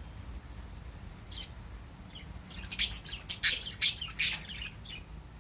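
Pet budgerigars chirping, with a quick run of about four loud, sharp squawks roughly three to four seconds in.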